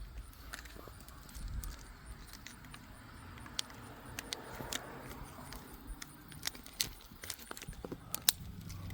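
A set of car keys jangling as they are handled, with scattered light clicks and ticks.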